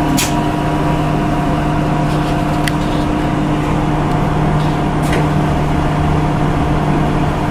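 Nissan Diesel CNG city bus idling, a steady hum that holds one pitch, heard from inside the cabin. A few sharp clicks sound over it.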